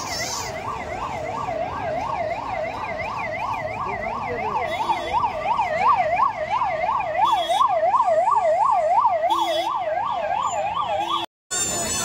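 Electronic siren warbling rapidly up and down, about three to four sweeps a second, held evenly and broken by a brief dropout near the end.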